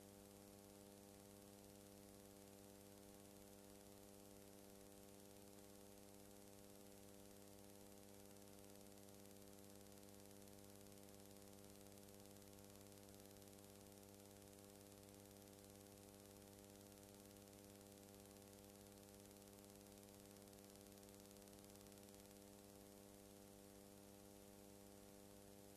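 Near silence: a faint, steady electrical hum with hiss, unchanging throughout, and no other sound.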